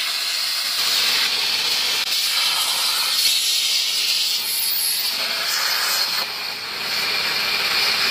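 Plasma torch of a CNC plasma cutting table cutting metal plate, a loud, steady hiss from the arc and its gas jet. It eases briefly a little past six seconds in, then carries on.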